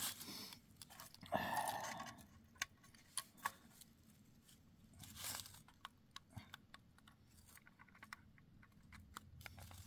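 Faint crunching and scraping with scattered sharp clicks as birch tinder and twigs are handled in a small twig stove while the fire is being lit. There are two short scrapes, the larger about a second and a half in.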